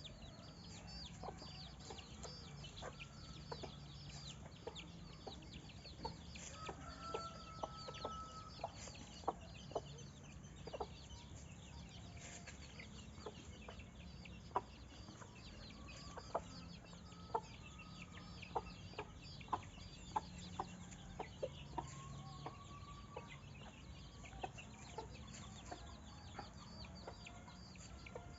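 Chickens clucking in short, sharp calls at irregular intervals, with fast, high-pitched chirping going on above them.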